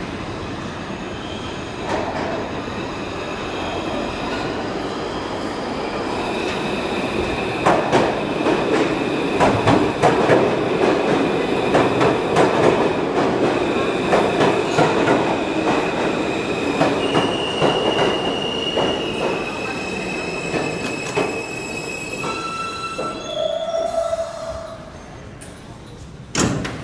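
New York City subway train running, its wheels squealing in steady high tones against the rails, with rapid clicking over the rail joints. It is loudest in the middle. Near the end comes a short descending two-note chime.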